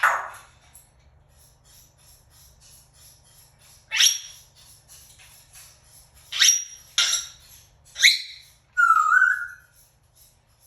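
African grey parrot giving five short, sharp, high calls spaced a few seconds apart, then a brief warbling whistle near the end.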